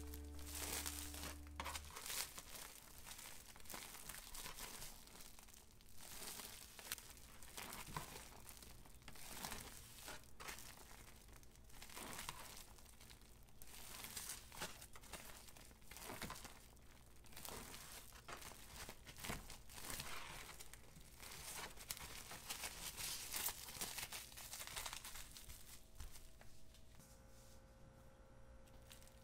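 Plastic cling film crinkling and rustling irregularly as a soft dough is kneaded and pressed by hand inside a double layer of wrap.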